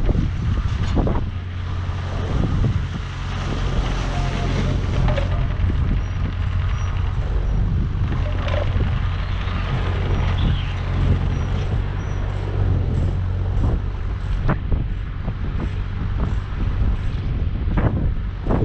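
JCB 8025 mini excavator's diesel engine running steadily, with a few sharp knocks now and then and wind on the microphone.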